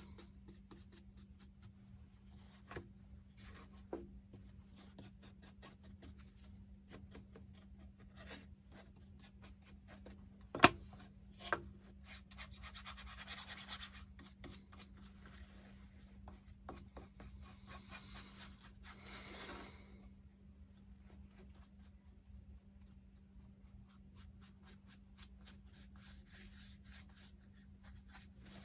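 Paintbrush strokes rubbing and scratching as black paint is brushed onto mower seat strips, soft and uneven. A few sharp knocks stand out, the loudest about ten seconds in, over a steady low hum.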